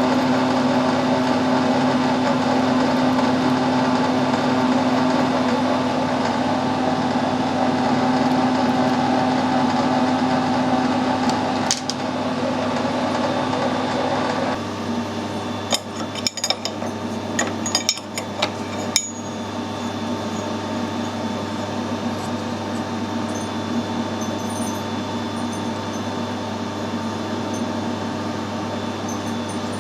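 Metal lathe running with a steady hum. About halfway through the sound drops to a lower, quieter hum, and a few sharp metallic clinks follow.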